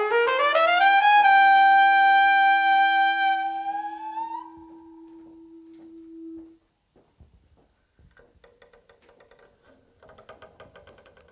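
A trumpet slides up in small steps to a long, bright high note, held about four seconds with a slight lift at the end before it fades. Under it a lower tone holds steady until about six and a half seconds, then it goes quiet except for faint clicks, and near the end a faint scratchy bowed sound from the double bass.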